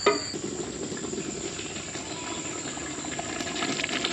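Mutton curry with yogurt and green chillies sizzling and bubbling in a large aluminium pot, cooking uncovered as its liquid reduces, with a wooden spoon stirring through it. The sizzle grows louder toward the end.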